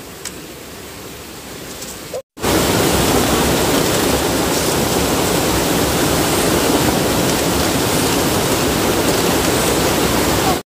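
Stream water rushing steadily and loudly, cutting in abruptly about two seconds in after a quieter stretch with a few faint clicks.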